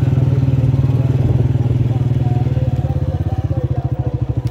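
Honda motorcycle engine running steadily while riding, its firing beats even, heard close from the rider's seat; it eases a little in loudness near the end.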